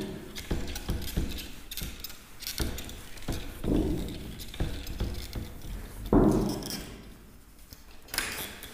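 Whiteboard duster rubbing across a whiteboard in a series of irregular wiping strokes, clearing off marker writing.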